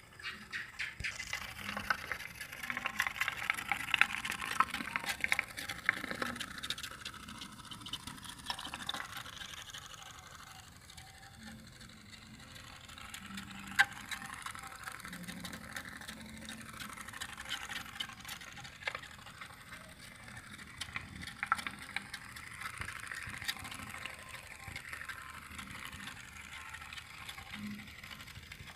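Homemade tin-can pop-pop boat (otok-otok) engine, fired by a cotton wick burning cooking oil, running with a rapid putt-putt clicking. The clicking is loudest in the first several seconds, with a few sharper single clicks later.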